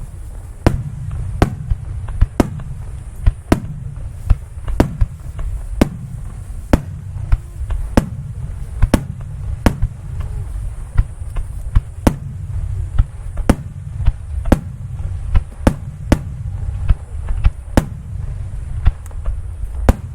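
Fireworks show: a rapid, irregular barrage of sharp aerial shell bursts, about two bangs a second, over a constant low rumble of booms.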